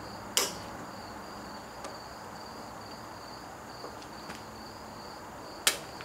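Sharp metallic clicks as a retaining clip is worked onto a pin of a backhoe's new bucket curl cylinder. There are two loud clicks about five seconds apart and a few faint ones between them, over steady insect chirping.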